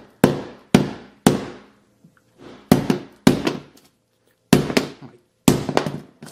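A 3-pound hammer striking the glass screen of a Samsung Galaxy S8 Plus in a run of sharp blows, each with a short ring. Three come about half a second apart, then after a pause more follow at uneven gaps, some in quick pairs. Under these blows the screen glass cracks.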